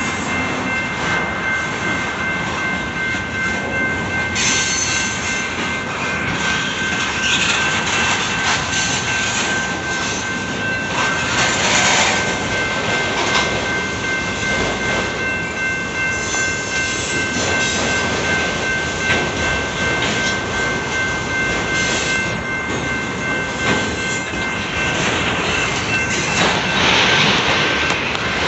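Freight train of autorack cars rolling past close by: continuous rumble and clatter of steel wheels on rail, with a steady high squeal from the wheels held throughout and a few louder swells.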